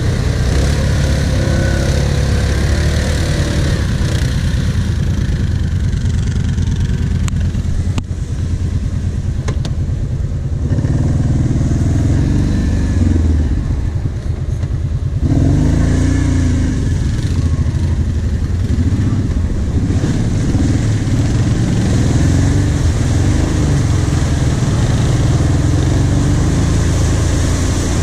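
Quad bike engine running and revving up and down while riding over dirt, louder from about ten seconds in. Near the end, water starts splashing as the quad wades into a flooded track.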